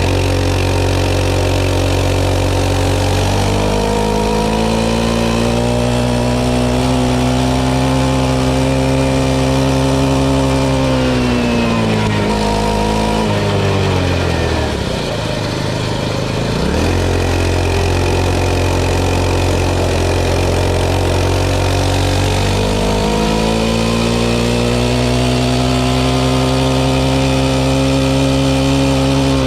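Pocket bike's small engine running. It sits low at first, climbs over several seconds, drops back around the middle, then climbs again and holds high near the end.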